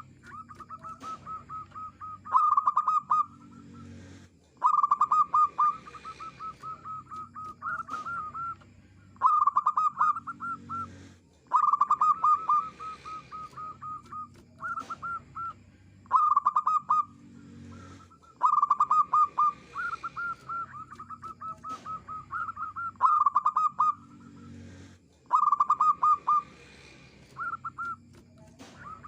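Zebra dove (perkutut) cooing: repeated phrases of rapid staccato notes, each phrase one to two seconds long, coming every few seconds.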